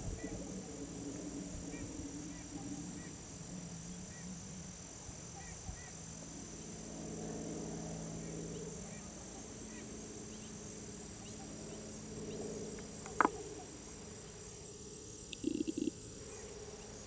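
Trumpeter swans calling: low, trumpet-like honks that come and go. Insects buzz steadily high in the background, and a single sharp click comes about two-thirds of the way through.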